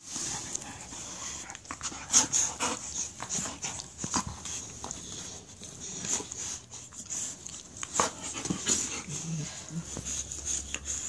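Two dogs play-fighting at close range, mouthing and biting at each other: a jumble of short, irregular clicks and rustles.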